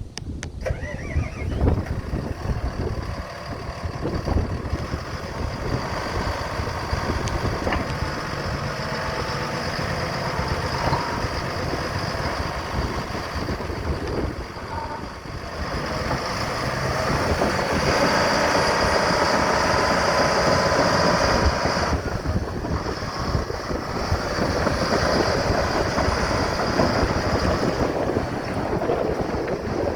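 Komatsu D85PX-18 crawler bulldozer's diesel engine running steadily, growing louder from about 16 s and easing back near 22 s.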